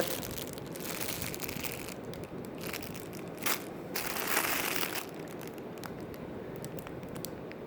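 Packaging crinkling and rustling as jewelry is handled and taken out of a box, in two longer bouts with light clicks and taps in between.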